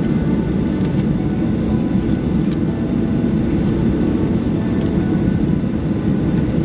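Steady cabin noise of a Boeing 737-800 on the ground at taxi power: its CFM56-7B engines running near idle, heard inside the cabin as a low, even rumble with faint steady whining tones above it.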